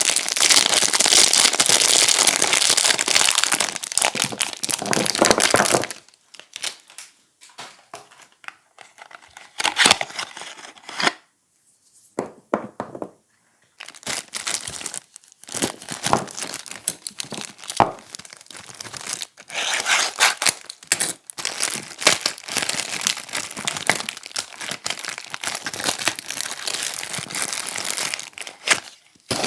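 Soap packaging being unwrapped by hand: wrapper crinkling and tearing. Dense crinkling for about six seconds, then a few scattered small clicks and a short pause, then steady crinkling again.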